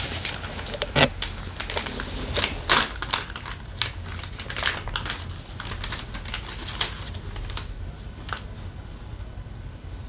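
Irregular clicks and taps of hand tools and metal parts being handled while a scooter engine is taken apart, the loudest knocks about one and three seconds in.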